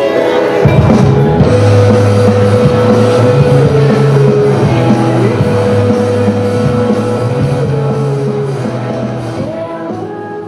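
Closing music with held notes over a strong bass line that comes in about a second in, then fading out near the end.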